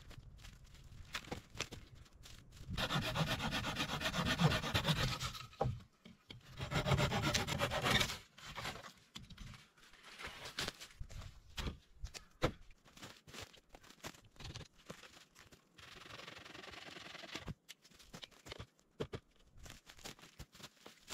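A hand tool rasping on wood in two long runs of quick strokes a few seconds in and a fainter run later, with scattered knocks and clicks in between.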